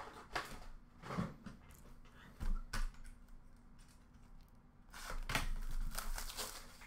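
A few light knocks as a sealed hockey card box is handled and set down, then, about five seconds in, roughly two seconds of crinkling and tearing as its plastic shrink wrap is ripped open.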